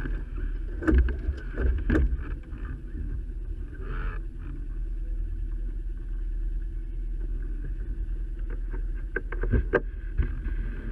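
Small outboard motor idling in neutral, a steady low hum. A few sharp knocks come about one and two seconds in and again near the end, as the tiller and its gear are handled.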